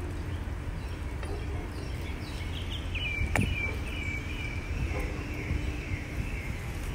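Outdoor ambience with a steady low rumble and a high, wavering chirping sound from about three seconds in until near the end. A single sharp click comes about halfway through.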